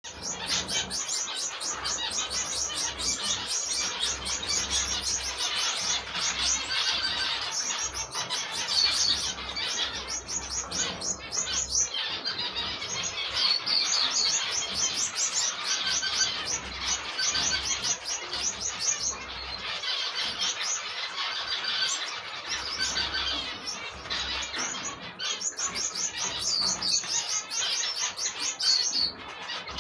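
Gouldian finch chicks begging for food with a fast, unbroken stream of high-pitched chirps.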